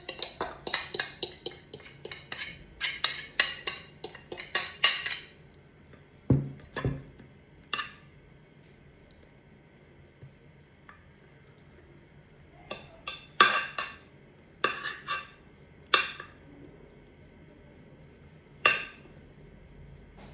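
Metal kitchen utensils clinking against dishes and cookware: a quick run of clinks for about five seconds, two dull knocks, then scattered single clinks.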